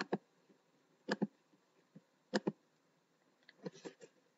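Computer mouse clicking: short sharp clicks in quick pairs about once every second and a quarter, with a few fainter ticks near the end.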